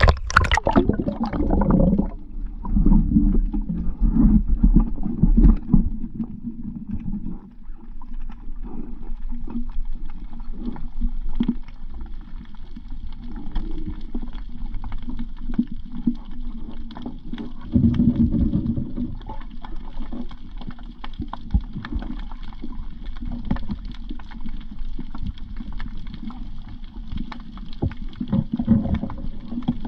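Water moving and gurgling around a spearfisher's camera, heard muffled as a low uneven rumble that swells several times, with many faint clicks throughout.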